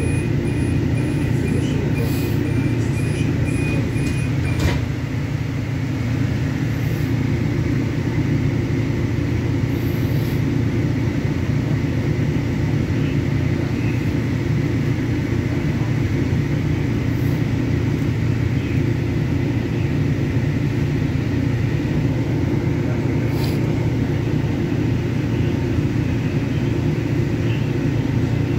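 Steady low hum inside a light-rail train standing at a station, from the car's running equipment. A thin, steady high tone sounds for the first few seconds and stops with a click.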